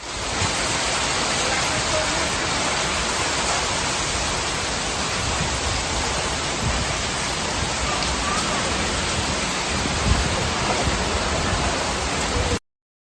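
Storm wind and rain: a dense, steady rush of noise, with wind buffeting the microphone at the low end. It cuts off suddenly near the end.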